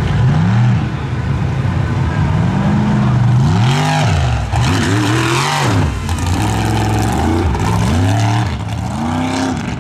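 One-ton class mud racing truck's engine revving hard over and over, its pitch climbing and dropping about six times as the driver gets on and off the throttle through the course.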